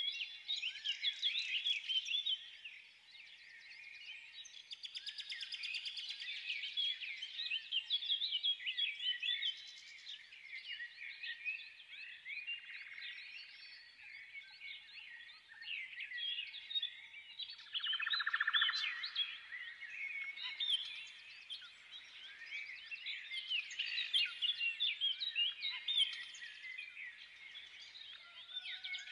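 A dense chorus of many small birds chirping and twittering without a break, with a short buzzy trill about two-thirds of the way through.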